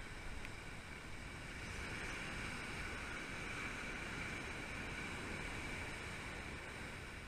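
Ocean surf breaking on a beach, mixed with wind buffeting the microphone: a steady rushing noise.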